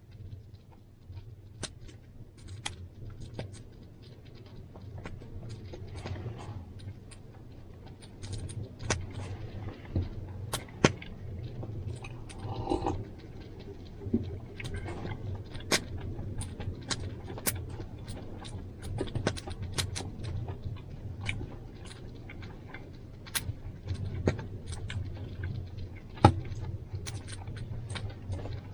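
Irregular clicks, knocks and light rattles of small objects being handled and set down, over a steady low hum.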